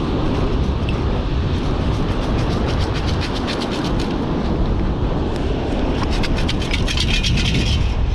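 Strong wind buffeting the microphone, over a rapid rattle of sand and grit being shaken through a beach sand scoop while a target is sifted out. The rattle grows busiest near the end.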